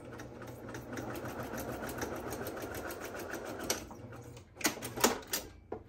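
Electric sewing machine stitching steadily at a quick, even rate as layered cotton and interfacing are fed through. The stitching stops about four seconds in, followed by a few sharp clicks.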